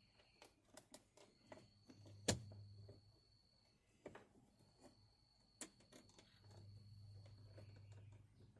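Faint clicks and small knocks of plastic and metal parts being handled and fitted while a car door's interior handle is refitted, with one sharper click about two seconds in. A faint low hum comes in twice.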